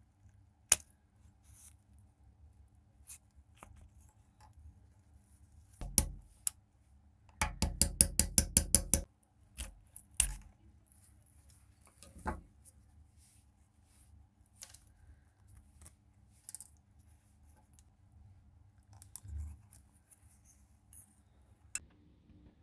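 Small plastic and metal parts of a water dispenser's tap clicking and knocking as they are pulled apart by hand and set down on a work surface: scattered single clicks, with a quick run of about a dozen clicks near the middle.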